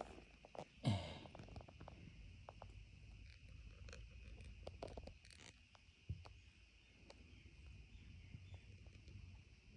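Faint rustling and small clicks, with a short low thump about a second in and a smaller one about six seconds in.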